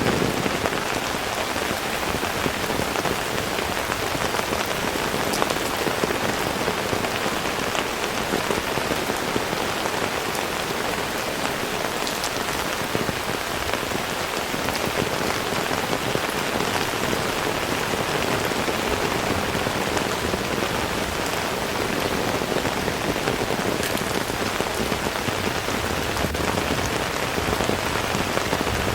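Heavy rain falling steadily as an even, dense hiss, with sharp individual drop impacts standing out here and there.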